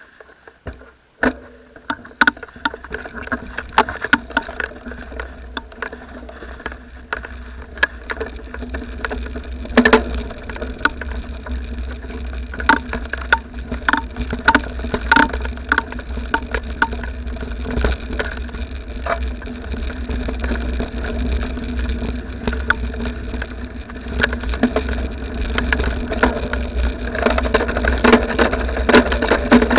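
A motor vehicle's engine running steadily as it drives, with many sharp knocks and rattles scattered throughout; it gets louder over the last few seconds.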